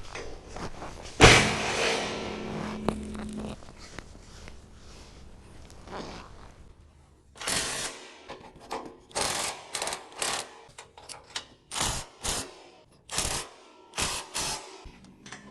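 A loud thunk about a second in, followed by a low hum for about two seconds. In the second half comes a quick run of short knocks and clatters, typical of steel workshop parts being handled and set down.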